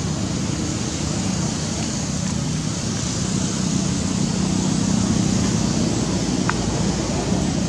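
Steady outdoor background rumble and hiss, traffic- or wind-like, with no clear event in it; a brief high squeak sounds once near the end.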